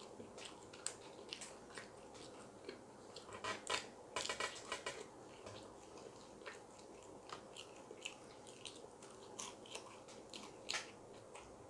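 Faint chewing and biting of fried food, with scattered crisp crunches and a busier run of crunching and crackling about four seconds in.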